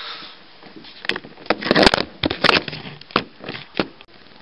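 Handling noise from the puppeteer moving below the stage: an irregular run of about a dozen sharp knocks and clatters between about one and four seconds in.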